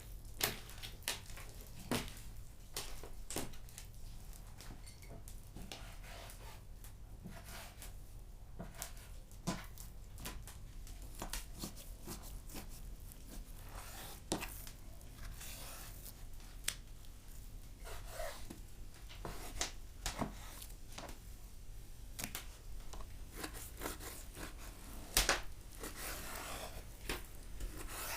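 Wood fire crackling in a wood-fired tandoor, with irregular sharp pops and snaps scattered over a faint steady background.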